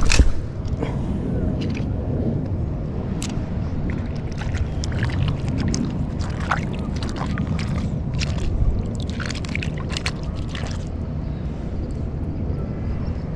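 Swish of a cast with an ultralight spinning rod about a second in, then a steady low rumble of wind on the microphone with water lapping and scattered light clicks.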